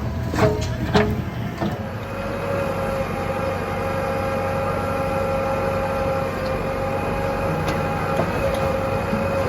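Diesel engine of heavy earthmoving machinery running steadily with a steady high whine, and two sharp metallic clanks about half a second and a second in.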